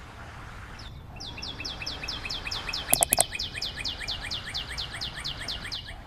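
A bird calling a rapid, even series of short falling chirps, about six a second, over a steady background hiss. Three sharp clicks come about halfway through.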